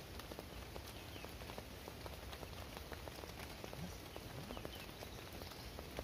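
Steady heavy rain falling on a tarp shelter and the surrounding forest, with many small sharp drop ticks throughout.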